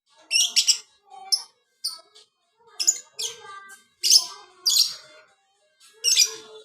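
Lovebird chattering: a string of short, shrill, harsh chirps about one to two a second, with quieter twittering between them.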